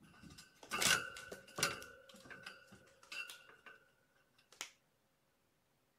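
Kittens knocking toys about: a quick run of clicks, taps and rattles, loudest about a second in, with a faint ringing tone under them.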